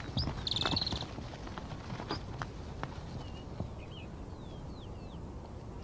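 Guanaco alarm call: one shrill, trilled, whinny-like cry lasting under half a second, about half a second in. A few scattered knocks of hooves follow, and later a few short falling chirps.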